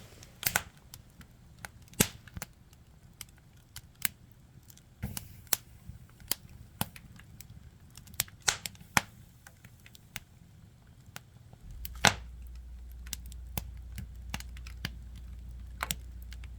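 Firewood burning, crackling with irregular sharp pops and a few louder snaps. A low steady hum comes in about twelve seconds in.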